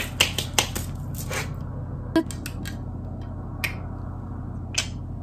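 A quick run of finger snaps, about five a second, that stops about a second and a half in. A few scattered light clicks follow as sunglasses are handled, over a low steady room hum.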